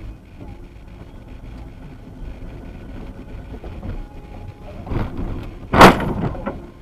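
Car collision: steady engine and road noise, a bang about five seconds in, then a much louder sudden crash with a brief clatter after it.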